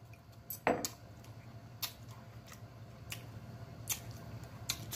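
A low steady hum with a few faint, sharp clicks: one louder click under a second in, then about five more, well apart.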